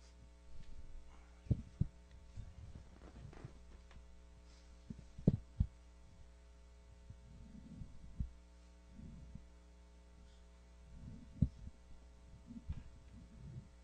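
Steady electrical hum through the PA, with scattered low thumps and rustles as a handheld microphone is handled and passed along the table. The loudest bumps come about five seconds in and again about eleven seconds in.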